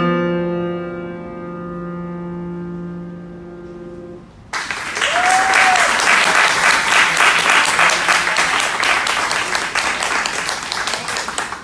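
A final chord struck on a Steinway grand piano and left to ring, fading over about four seconds. Then applause breaks out suddenly and continues.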